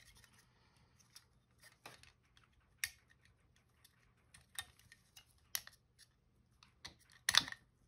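Small plastic parts of a Microsoft IntelliMouse Optical's shell being handled and fitted together, giving scattered light clicks and taps. One sharper click comes about three seconds in and a quick cluster comes near the end.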